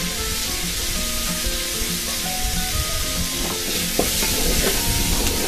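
Soaked chickpeas, fried onion and spice powders sizzling in oil in an aluminium pressure cooker, with a metal spoon scraping and stirring the masala in the pot for a second or so about three and a half seconds in. Soft background music plays underneath.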